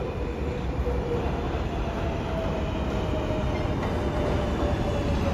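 R188 subway train running into the station: a steady rumble of wheels on the track, growing slightly louder, with a faint thin tone that rises a little about two seconds in and then holds.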